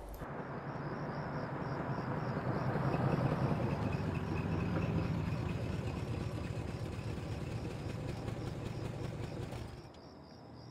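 A car engine running, growing louder over the first few seconds, then easing and dying away near the end. Crickets chirp steadily behind it.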